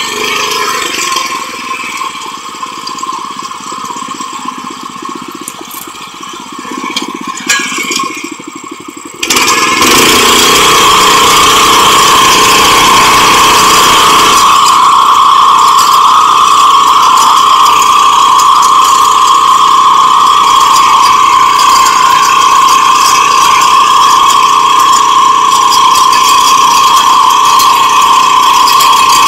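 Small rotary tiller engine running, quieter and uneven for the first nine seconds with a few clicks and rattles. Then it turns abruptly much louder and steady, with a strong high whine, and holds there.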